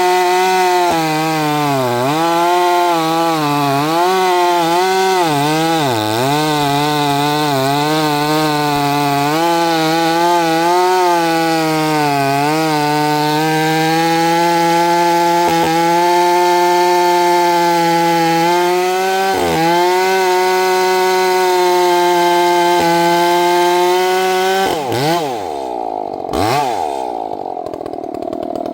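Large gas chainsaw at full throttle through a long cut in a log, its engine pitch sagging under load several times and picking back up. Near the end it drops to idle and is revved briefly twice.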